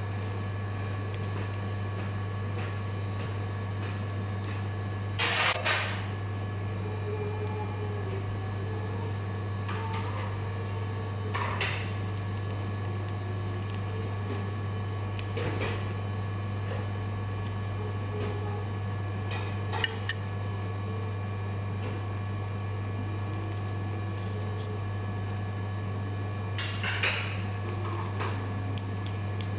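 A metal spoon clinking and scraping against a ceramic plate of biryani rice about six times, some strokes brief and a couple longer, over a steady low electrical hum.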